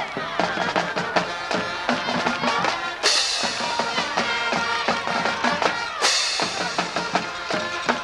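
Band music with drums and a steady beat, held notes changing every few beats.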